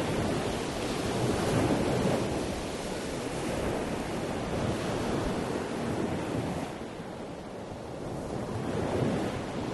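A steady rushing noise like surf, swelling and easing, that drops a little for about a second around seven seconds in.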